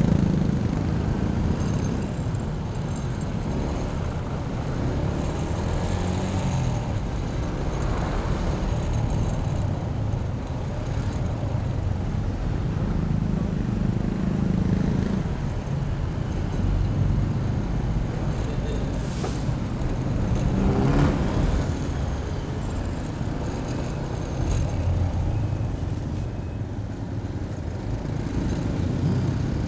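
Motorcycle ride through heavy city traffic: a steady low rumble of engines and road noise that swells now and then, with one brief louder swell about two-thirds of the way through.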